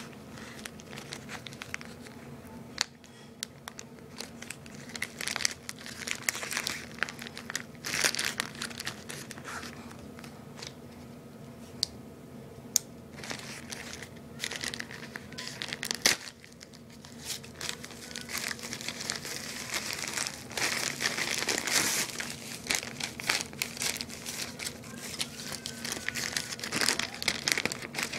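Packaging being crinkled and pulled open by hand, in irregular spells of rustling with sharp crackles, louder about a third of the way in and again past two-thirds.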